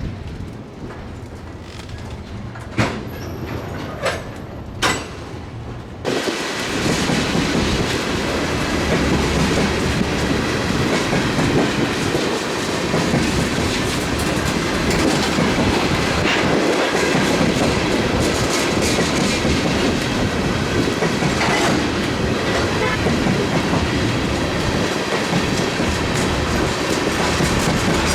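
Freight train of tank cars rolling past on the rails, wheels clacking and cars rattling. A few sharp knocks come first, then about six seconds in the sound suddenly grows loud and stays loud.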